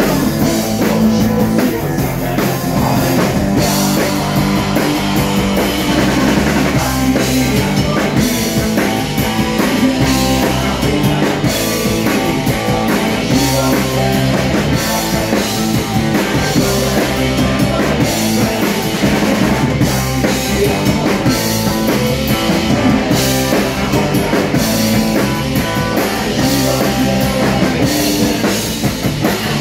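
Punk rock band playing live at full volume: drum kit and electric guitars driving a steady rock beat.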